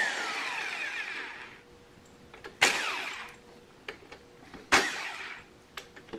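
Impact wrench on a long extension, fired in short bursts to loosen a tight bolt, each burst dying away in a falling whine. One tails off at the start, two more come about two seconds apart, and another starts right at the end.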